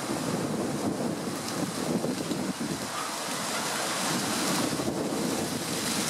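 Wind blowing across the camera's built-in microphone: a steady rushing noise with no clear calls.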